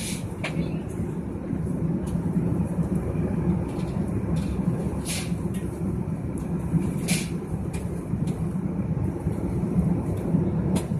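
Steady low rumble of airliner cabin noise in cruise flight, the engines and the air rushing past the fuselage, with a few short faint clicks.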